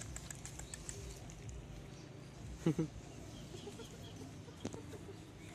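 Two short, quick animal calls in a row about two and a half seconds in, over a low steady outdoor background, followed by a single sharp click.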